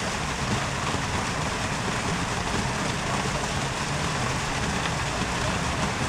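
Steady rushing of water running over rocks in a mini-golf water feature's shallow artificial stream, with a faint low hum underneath.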